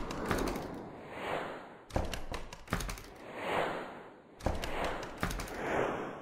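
Intro soundtrack of repeated swelling whooshes, each ending in a sudden hard hit with a deep thump and a flurry of sharp clicks, about every two and a half seconds; two hits fall about two seconds and four and a half seconds in.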